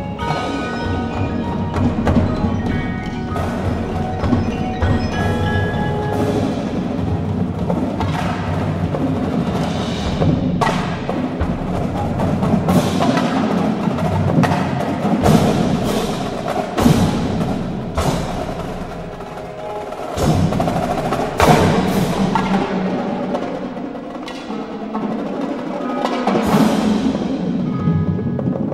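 Indoor drumline performing: marching snare, tenor and bass drums playing together with a front ensemble of marimbas and vibraphones, with frequent sharp accented hits over ringing mallet notes.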